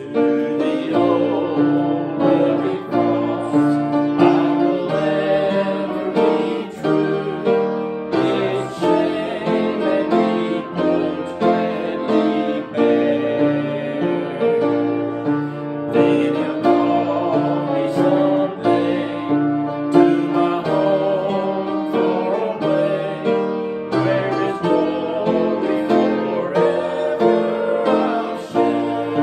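A man singing a hymn to piano accompaniment.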